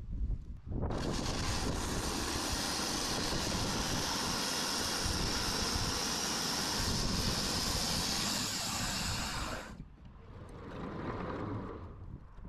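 Sawmill running and cutting through an ash log: a steady, loud mechanical noise that starts abruptly about a second in and cuts off suddenly near the end, followed by a fainter noise that swells and fades.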